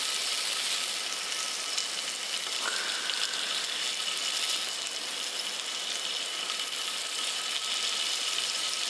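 Skewered chicken and chicken hearts sizzling on the ridged plate of a small tabletop gas grill: a steady hiss, with faint high chirps repeating about once a second.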